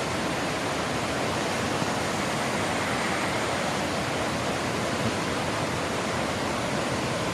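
Steady rushing of flowing water from a river or stream below an old bridge, an even noise with no change.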